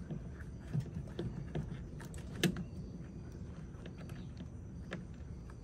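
Scattered clicks and light knocks of hose clamp pliers, a spring hose clamp and a rubber coolant hose being worked onto the plastic fitting of a coolant overflow tank, the sharpest click about two and a half seconds in.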